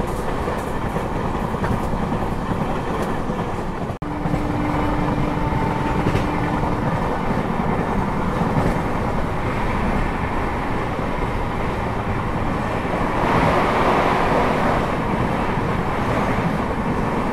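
Track sounds inside an LHB passenger coach running on the line: a steady rumble of wheels on rails. There is a brief break about four seconds in, and the rushing gets louder for a couple of seconds a little before the end.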